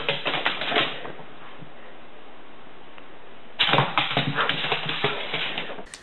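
Dog's claws clattering and scrabbling on a hardwood floor as it twists around, in two quick spells about two and a half seconds apart, with a steady hiss between them.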